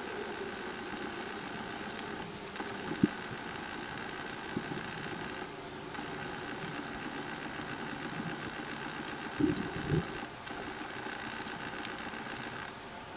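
Steady motor hum heard underwater, with a few short knocks: one about three seconds in and two close together near ten seconds.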